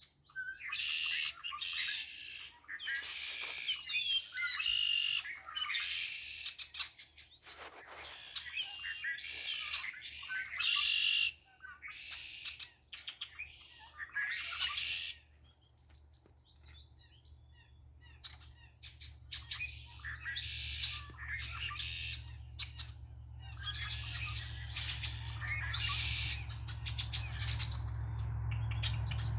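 Songbirds singing and chirping, short phrases following one another with a brief lull about halfway through. A low steady hum grows louder in the second half.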